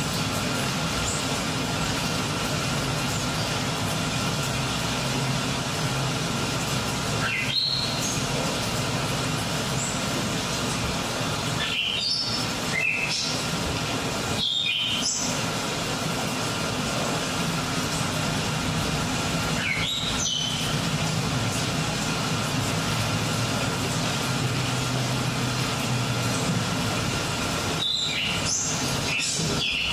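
Dance piece's soundtrack: a steady, dense noise with a low rumble underneath, broken every few seconds by a brief cut-out with short high chirps.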